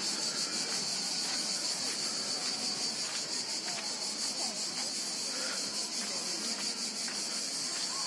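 Cicadas buzzing in the pine trees: a steady, high-pitched hiss with a fast pulsing flutter. Faint, distant voices of people on the beach sit underneath.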